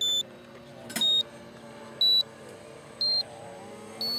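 Short electronic beeps, one a second and five in all, each a step higher in pitch, over the steady drone of a twin-engine radio-controlled model airplane that begins to rise near the end as the plane comes in low.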